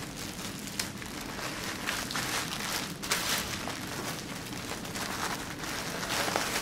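Thin clear plastic bag crinkling irregularly as hands pull it open and draw the folded jeans out of it.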